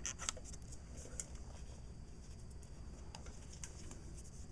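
Faint, scattered small clicks of screws being handled and set into the recline gear housing of a BMW 3 Series power seat during reassembly, over a low steady hum.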